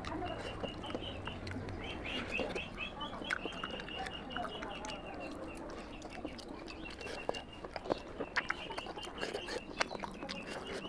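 Wet chewing, lip-smacking and fingers working through oily mutton head curry on a metal plate, heard as scattered clicks and smacks. Runs of quick, high chirping come in the background twice.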